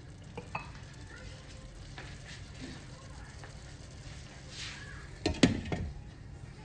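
Chicken simmering in sauce in a stainless steel skillet with a soft sizzle, then a Viking glass lid clatters down onto the pan about five seconds in, the loudest sound, with a brief metallic ring.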